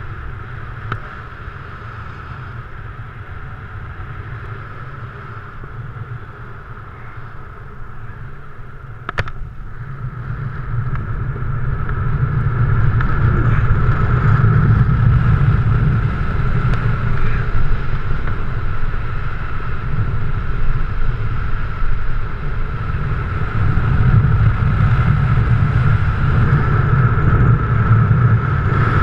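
Wind rushing over a helmet-mounted camera during paraglider flight. It grows louder from about ten seconds in, as the wing banks into a SAT manoeuvre. A single sharp click comes just before the rise.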